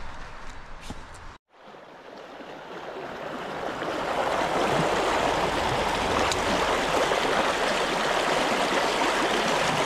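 Shallow creek water running over rocks, a steady rushing flow. It fades in after a brief drop to silence about a second and a half in, and is preceded by a few faint ticks.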